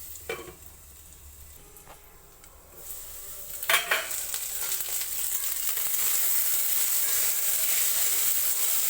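Diced potatoes frying in mustard oil in a kadai, sizzling softly at first. A little before the middle a metal clink rings out, and the sizzle then grows louder and brighter, as when the pan's lid comes off.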